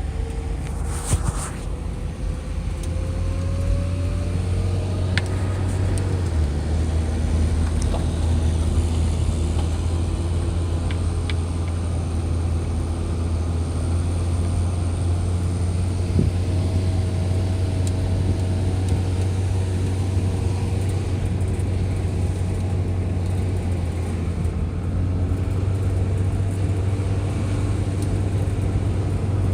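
An engine running steadily as a low drone, its pitch rising slightly over the first few seconds.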